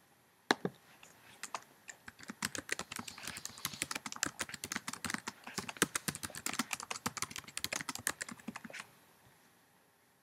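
Typing on a computer keyboard: a single click about half a second in, then a fast, irregular run of key clicks that stops about a second before the end.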